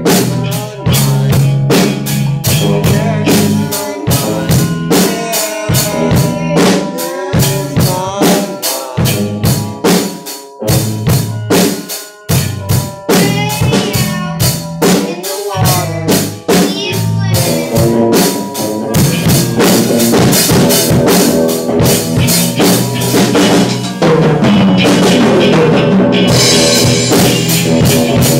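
A student rock band playing live: drum kit, electric guitars and a young singer at the microphone, with steady drum hits throughout. Over the last few seconds a crash-cymbal wash fills in as the band plays harder.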